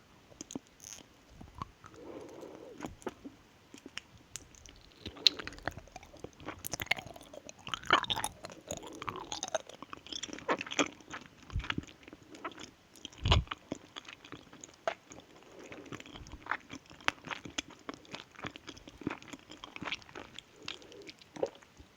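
Close-miked chewing of a soft candy whose peelable 'fruit skin' has just been removed: wet, sticky mouth sounds with many small clicks and smacks, and one sharper click about thirteen seconds in.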